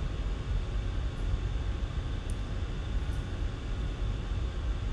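Steady low background rumble of room noise, with a few faint clicks scattered through it.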